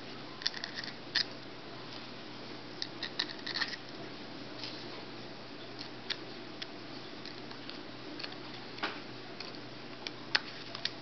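Faint clicks and light scrapes of a screwdriver and small screws against the metal end cap of a small electric motor as the screws are driven in: a quick run of clicks about half a second in, another around three seconds in, then single clicks spaced out, over a steady low hiss.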